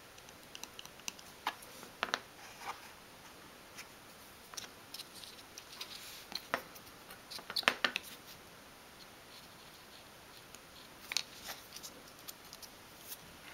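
Small clicks and taps of metal tweezers and fingers handling tiny card packets and setting them into a little wooden cupboard. They come sparsely, with the loudest cluster about eight seconds in.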